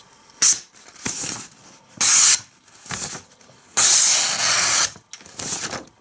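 A knife blade slicing through a sheet of paper in several separate strokes, each a short papery hiss. The longest stroke comes about four seconds in and lasts about a second. The blade is the Boker Magnum Peewee's thin, full-flat-ground blade, and the paper cutting is a test of its out-of-the-box sharpness.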